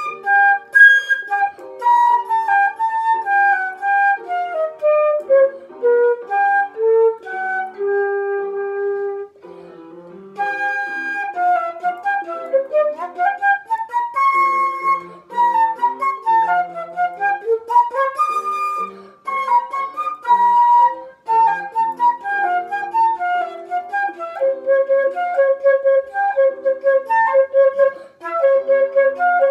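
Concert flute playing a classical melody, with a descending run in the first seconds, a short break about nine seconds in, then rising and falling runs and repeated notes. A quieter, lower accompaniment part sounds underneath.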